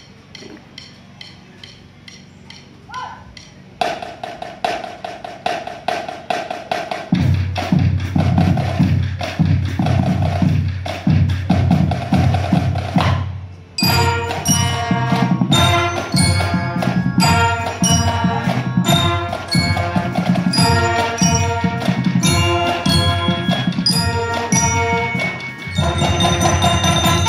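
Marching band playing. A steady percussion tick opens it; a held tone and drums come in about four seconds in, with low brass and bass drums joining a few seconds later. After a brief break near the middle, the full band plays with bell lyres ringing high over the brass and drums.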